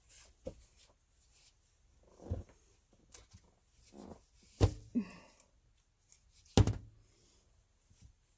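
Knocks and thunks of things being handled and set down, with light rustling; two sharp knocks stand out, about four and a half and six and a half seconds in.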